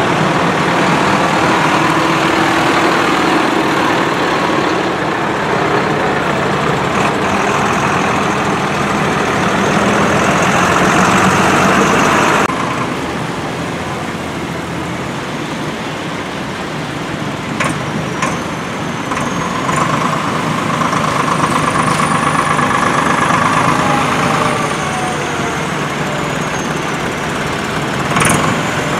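Diesel engines of several farm tractors running as they drive slowly past one after another on a wet street, with tyre hiss on the wet road. The sound changes abruptly about twelve seconds in, and a faint high whine rises and falls later on.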